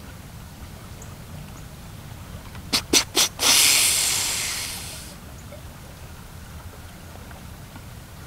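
Whitetail buck snort-wheeze: three short, sharp snorts, then a long hissing wheeze that fades over about a second and a half, the rutting buck's challenge call.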